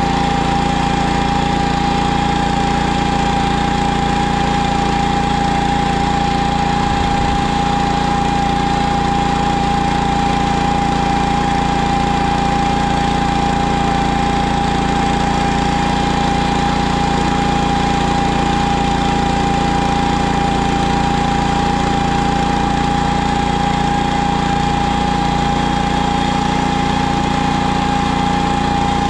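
PermaGreen ride-on spreader-sprayer running steadily while being driven across a lawn, its engine note holding even with a steady whine over it.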